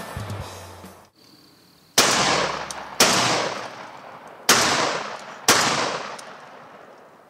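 Mossberg 930 semi-automatic 12-gauge shotgun firing four shots in two quick pairs, about a second apart within each pair, each shot trailing off in a long fading echo. At the start, the tail of an earlier shot cuts off abruptly about a second in.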